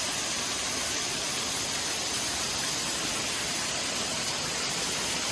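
Waterfall pouring heavily, heard from right at the foot of the falls: a steady, even rush of falling water.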